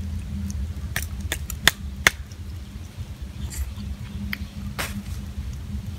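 Grilled crab shells cracking as they are broken open by hand and bitten: several sharp cracks about one to two seconds in, the loudest near the two-second mark, then a few softer crackles, over a low steady hum.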